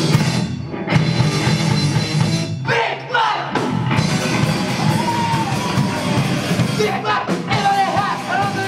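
A rock band playing live on drums and guitars, with a singer's voice coming in about three seconds in.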